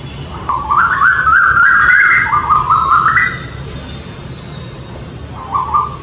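Male Asian koel calling in a territorial exchange between two males: a loud run of repeated whistled notes climbing in pitch, then dropping and climbing again in a second run. One short note follows near the end.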